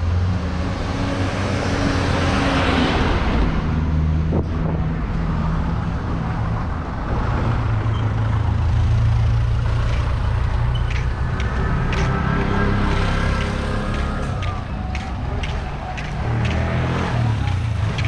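Street traffic: motor vehicle engines running close by, a steady low drone throughout, with a run of sharp clicks and knocks in the last several seconds.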